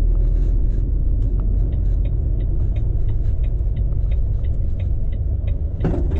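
Steady low rumble of a Volvo lorry's diesel engine and road noise inside the cab as it pulls off into a lay-by. A quick, even ticking, the turn indicator, runs from about a second in until near the end.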